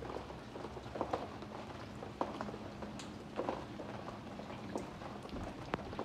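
Light rain falling on wet paving and plants: a steady soft hiss with single drops tapping and dripping sharply at irregular moments.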